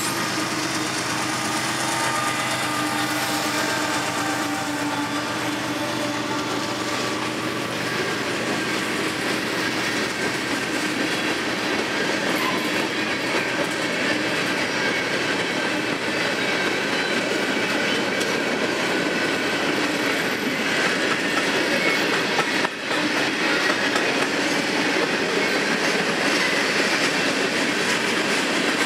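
CSX freight train rolling past, its freight cars' steel wheels clattering over the rail joints with a steady rumble. A mid-train diesel locomotive's engine runs through the first several seconds and fades as it moves off.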